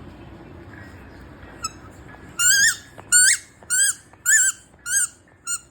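Squeaky toy ball letting out a quick run of high, wavering squeaks that sound like crying, about six in three seconds, starting a little over two seconds in.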